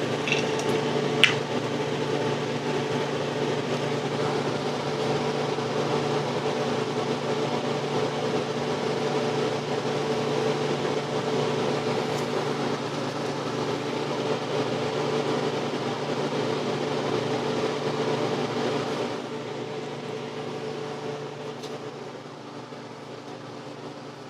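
Steady electric motor hum of a fan-type machine running, with one sharp click about a second in; the hum gets quieter about 19 seconds in.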